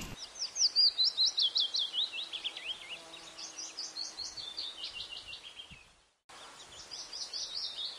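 A bird singing: a long series of rapid, high chirps, each sweeping downward, about five a second. The song cuts out briefly about six seconds in, then resumes.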